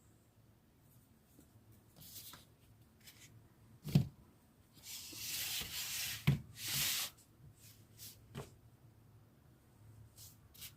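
Small metal pistol parts being handled on a workbench: faint clicks, two sharp knocks about four and six seconds in, and a stretch of rubbing between them.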